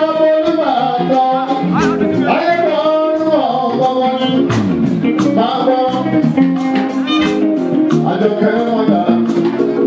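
Live band music with a man singing into a microphone over guitars and percussion.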